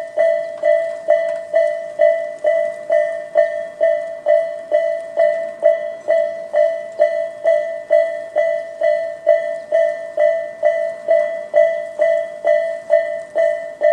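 Railway level-crossing warning bell, the Tobu Railway electronic 'sound A' type, ringing steadily at about two strikes a second. Each strike is a bright ringing tone with overtones that decays before the next.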